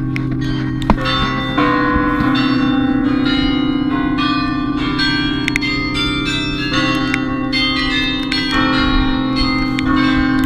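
The Bruges Belfry carillon playing a tune, heard close up from inside the tower: a steady run of bell strikes at changing pitches over the low, lasting hum of the larger bells.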